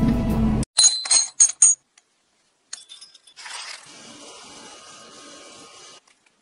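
A forestry harvester's engine running, cut off abruptly, then about four bright metallic clinks with a ringing tone as pieces of metal strike each other. These are followed by a steady hiss and crackle from the charcoal fire heating a crucible of brass scrap, which stops suddenly near the end.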